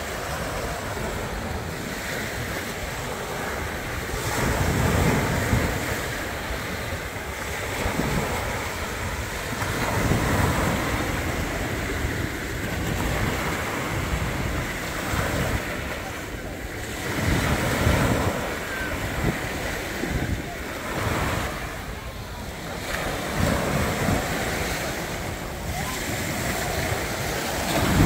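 Small waves breaking and washing up a sandy shore, the rush swelling every five or six seconds as each wave comes in, with wind buffeting the microphone.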